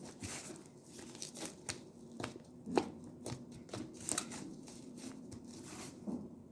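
Clear glue slime being squeezed and stretched by hand, giving irregular wet clicks and small pops.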